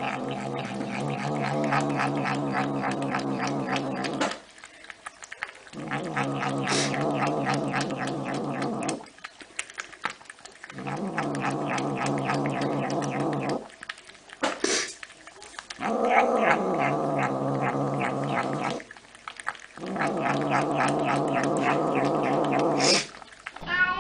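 A domestic cat yowling in five long, drawn-out, steady calls, each about three to four seconds, with short pauses between them.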